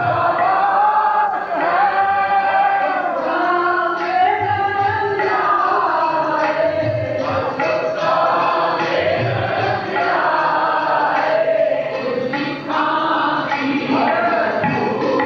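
Sikh kirtan: voices singing a shabad in long, bending sung lines to harmonium accompaniment, with tabla drumming and recurring low bass-drum strokes underneath.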